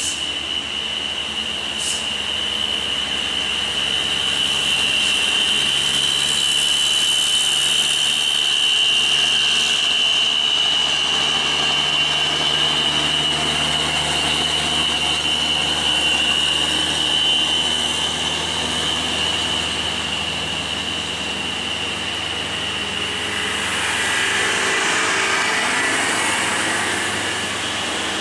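Diesel engines of Hino trucks labouring slowly up a steep grade in a low gear, with a steady high-pitched whine over them for most of the time. The engine note shifts a few seconds in, and a louder rush swells up near the end as a truck draws close.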